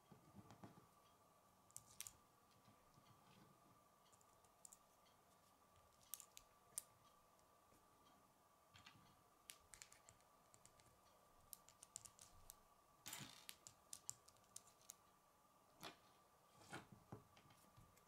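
Light clicks and taps of plastic K'nex pieces being handled and slid onto a plastic rod, coming in small irregular clusters, with a faint steady high whine underneath.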